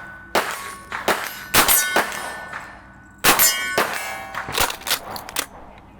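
A string of shots at steel plate targets: about nine sharp cracks, each hit clanging and leaving the steel ringing.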